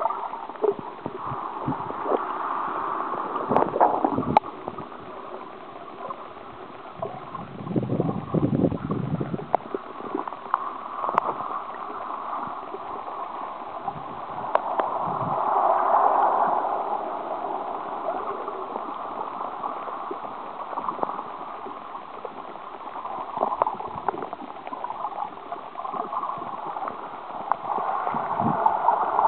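Sea water heard through an underwater camera's housing: a steady muffled rushing hiss with many scattered sharp clicks. A low rumbling surge comes about eight seconds in, and the rushing swells louder again in the middle and near the end.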